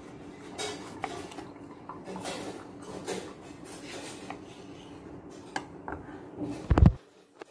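Kitchen knife cutting a tomato on a wooden cutting board: scattered light taps and scrapes of the blade, with one much louder knock near the end.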